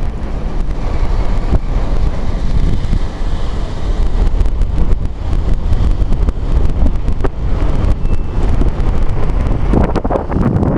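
Wind buffeting the camera's microphone: a steady, loud low rumble with irregular crackling gusts.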